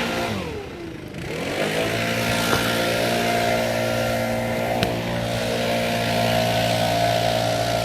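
An engine running steadily, briefly slowing down and then speeding back up about a second in, with a sharp click near the end.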